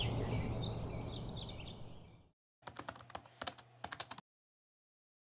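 Birds chirping over a low steady hum, fading out within the first two seconds. After a short silence, a quick run of keyboard typing clicks lasting about a second and a half, a typing sound effect for text being typed onto the screen.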